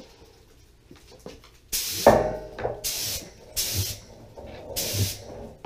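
Compressed-air paint spray gun spraying automotive paint in four short passes of hiss. The first burst is the longest, about a second, and the later ones are shorter, with soft low thuds as some of them stop.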